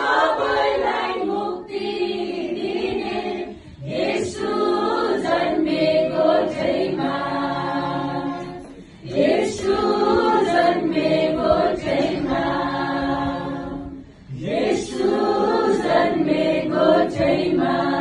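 A mixed choir of women's and men's voices singing a Christmas carol together, in long held phrases with short pauses for breath about every five seconds.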